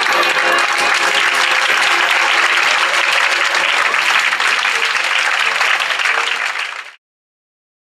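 A theatre audience applauding, with the tail of music underneath at the start. The applause fades away about seven seconds in, and then the sound cuts to complete silence.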